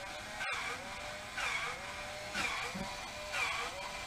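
Battery-powered grease gun running, its motor whine dipping and swelling about once a second with each pump stroke as it forces grease through the zerk fitting into a new driveshaft U-joint.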